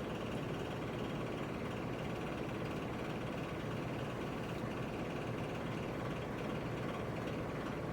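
1.6-inch ceramic round hot air brush running, its fan blowing hot air in a steady whir while a section of hair is held wound on the barrel.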